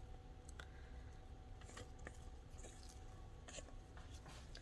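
Near silence with a faint steady hum and a few soft, faint clicks and squishes as sticky, very soft dough is scraped from a bowl with a silicone spatula.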